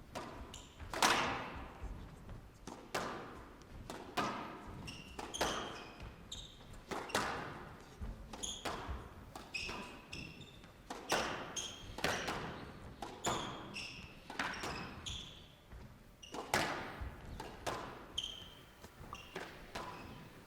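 Squash rally: the ball cracks off rackets and walls in a steady run of sharp smacks, about one a second, each echoing in a large hall, with short high squeaks of players' shoes on the court floor between the shots.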